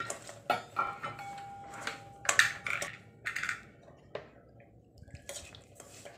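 Steel ladle scraping and tapping against a stainless steel kadai while stirring dry millet rava as it roasts, in irregular strokes.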